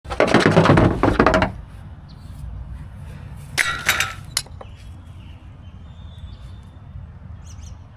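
Loud clatter of hard objects being handled, rattling for about a second and a half, then a shorter clinking rattle with a few sharp clicks about three and a half seconds in.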